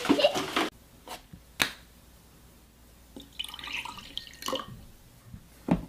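A thin stream of liquid trickling into a drinking glass, set among a few sharp taps and clicks, the loudest near the end.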